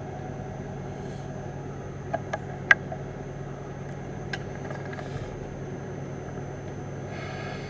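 Metal lathe running, its four-jaw chuck spinning a brass workpiece: a steady mechanical hum. A few sharp metallic clicks come about two to three seconds in, and another near the middle. The sound turns brighter near the end.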